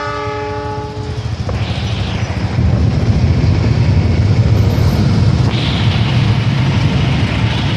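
An electric commuter train sounds its horn, a held chord that stops about a second in. The train then runs past with a loud, steady rumble of wheels on the track, which gets louder about two and a half seconds in.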